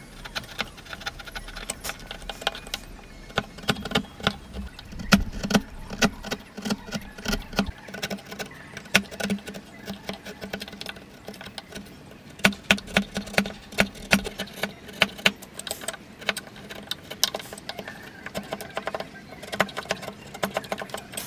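Wood chisel being pushed by hand through timber. Irregular sharp clicks and cracks come as the blade cuts the fibres and chips split off, in busy runs with quieter pauses between.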